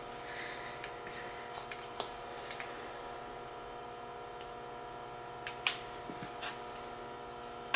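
Steady shop hum with a few light, scattered metallic clicks, the sharpest about five and a half seconds in, from a torque wrench being worked on the ball-joint nuts.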